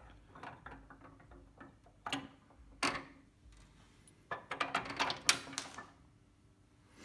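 Metal parts of a Team Z caster camber plate and its spacers clinking and clicking as they are handled and fitted onto the strut tower. Scattered clicks give way to a quick run of clinks about four to six seconds in.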